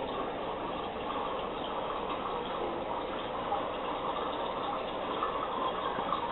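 Turtle-tank filters and aeration pump running: a steady splashing, bubbling water noise.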